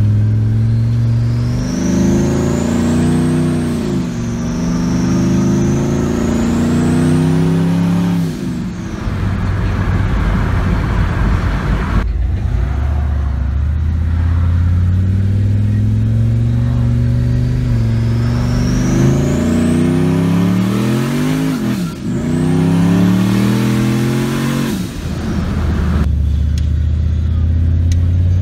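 Turbocharged LS V8 in a Chevrolet Colorado pickup accelerating hard in several pulls, engine pitch climbing and then dropping at each shift or lift-off. A high turbo spool whistle rises with each pull, and a noisy rush of escaping boost follows when the throttle closes.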